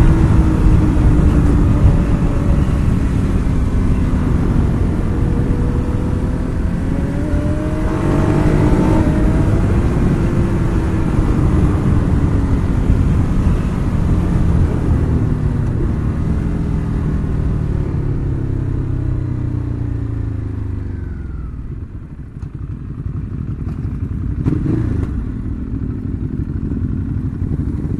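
Ducati Hyperstrada's 821 cc L-twin engine pulling hard on a ride, its pitch rising and falling through the throttle and gear changes over a rush of wind noise. Later the revs fall away and the wind drops as the bike slows, and the engine runs lower and quieter near the end.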